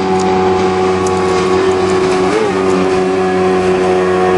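A loud, steady motor drone holding one pitch, with a brief wobble in pitch about two and a half seconds in.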